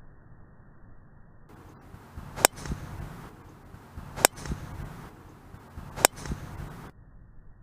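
Three sharp cracks of a golf club striking a ball, about 1.8 seconds apart, each followed a moment later by a softer thud.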